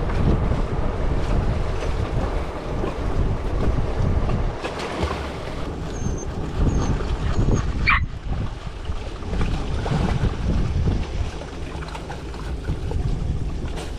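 Wind buffeting the microphone in a steady low rumble, over water around the boat. A single short high squeak sweeps through about eight seconds in.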